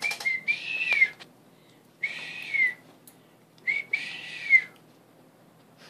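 A person whistling three short, breathy whistles at a dog to catch its attention, each held on one pitch with a slight rise and a quick drop at the end.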